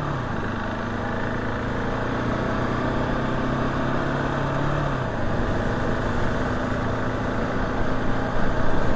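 KTM 690 SMC R supermoto's single-cylinder engine running while the bike is ridden. Its steady note changes about five seconds in.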